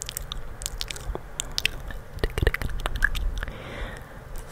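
ASMR mouth sounds: irregular lip and tongue clicks and smacks, made inside cupped hands pressed right against the microphone.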